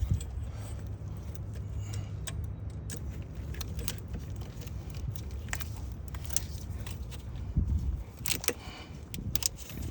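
Scattered light metallic clinks and taps of hand tools and hose clamps being handled during heater hose clamp installation on a GM 2.4 L engine, over a low rumble that fades out near the end.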